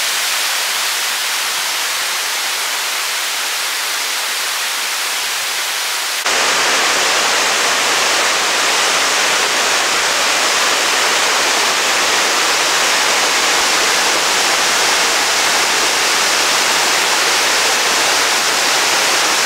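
Waterfall cascading onto rocks: a steady rushing of water that becomes louder and fuller about six seconds in.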